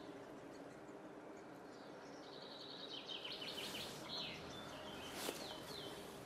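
Great spotted woodpecker nestlings begging from the nest hole: a quick chattering series of short, high calls from about two seconds in until nearly five seconds, over a faint steady hum. A single sharp click a little after five seconds.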